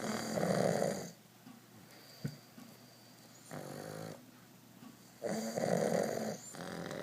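Pug snoring in its sleep: a loud snore at the start, a softer one about three and a half seconds in, and another loud one about five seconds in that trails off more softly.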